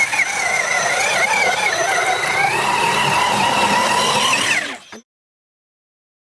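Electric motor and gear drivetrain of an RC scale crawler whining under load as it churns through deep mud, the pitch wavering up and down. About five seconds in the whine falls away and the sound cuts out to silence.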